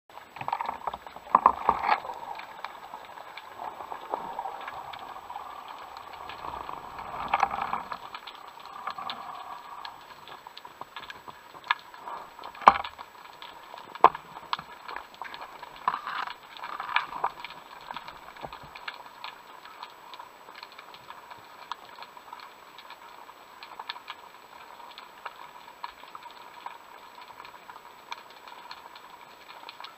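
Underwater sound around a diving camera housing: water rushing and swirling as the spearfisher swims, with scattered small clicks and crackles. Two sharp knocks near the middle stand out as the loudest sounds.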